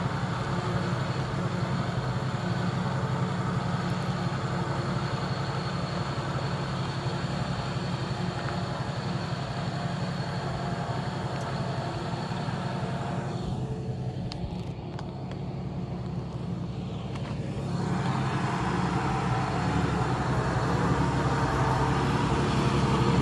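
Jeep Cherokee's engine running at a low, steady idle-like pace as it crawls down a rough dirt track towing a small caravan, growing louder near the end as it comes close.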